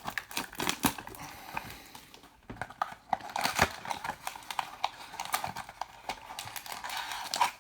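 Trading card pack wrapper being torn open and crinkled, with a string of quick irregular clicks and rustles as the cards are handled.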